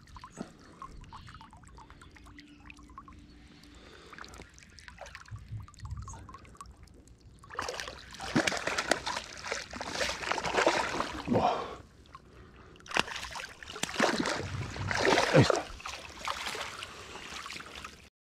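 Water splashing and sloshing in two bouts of several seconds each, after a quieter stretch of faint trickling, then cutting off suddenly near the end.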